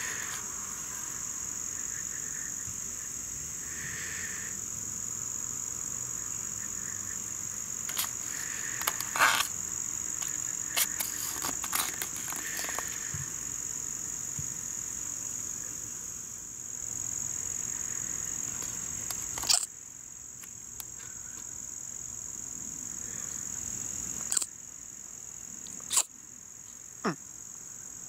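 Steady high-pitched drone of insects, with a scattering of short sharp clicks through it.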